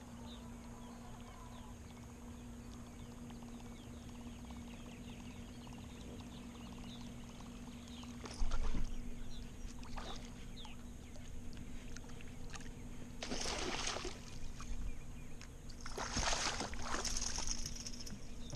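A bass hooked close to the boat: a sudden splash about eight seconds in, then two longer bursts of splashing as the fish thrashes at the surface and is swung aboard, over a steady low hum.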